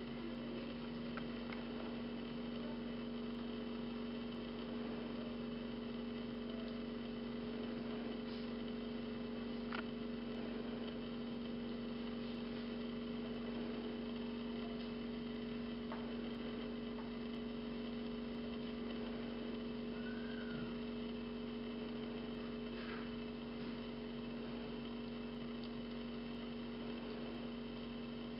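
Steady electrical hum: one strong low constant tone with a fainter tone above it, unchanging throughout, and a few faint clicks.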